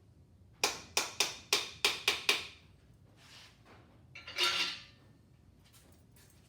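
A hammer tapping a piston down through a ring compressor into the cylinder bore, seven sharp taps in quick succession, followed about four seconds in by a brief metallic rattle.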